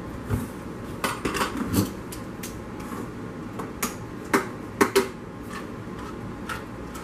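Metal clicks and knocks of a handheld can opener being picked up and clamped onto a tuna can, the loudest clicks about four to five seconds in, after a plastic jar is moved on the countertop.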